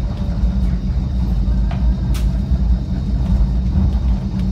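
Cable-hauled Great Orme tramcar running along its rails: a steady low rumble, with one sharp click about two seconds in.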